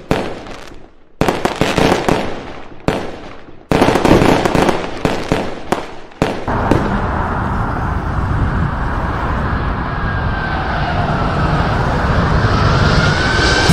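A series of sharp firework bursts, each dying away, for about the first six seconds. Then the steady roar of a jet airliner's engines on takeoff, slowly growing louder with a faint rising whine.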